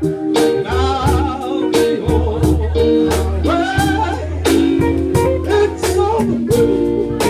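A man singing into a microphone with a live band: electric guitar and keyboard over sustained bass notes and a steady beat.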